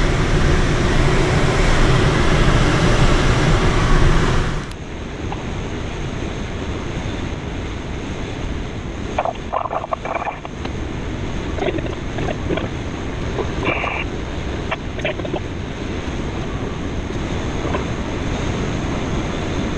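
Steady rush of airflow around a K13 glider's cockpit in flight. About five seconds in it cuts abruptly to a quieter, thinner rush with a faint steady high whistle and a few brief scattered sounds.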